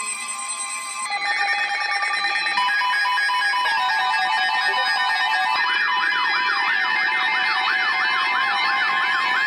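Several electronic alert tones layered together. A steady tone is joined about a second in by a buzzing tone, then by pulsed beeps, and from about halfway by a rapidly repeating rising-and-falling siren-like warble.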